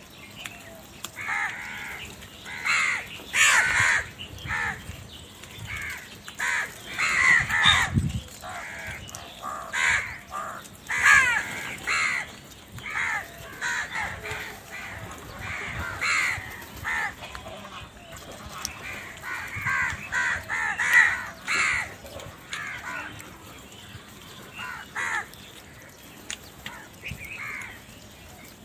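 A large flock of crows cawing, many harsh calls overlapping in irregular clusters, thinning out near the end.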